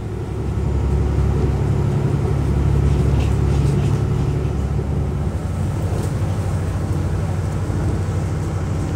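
Diesel engine of an Alstom Coradia LINT 54 railcar running under power, heard from inside the passenger compartment as a steady low drone that grows louder about a second in.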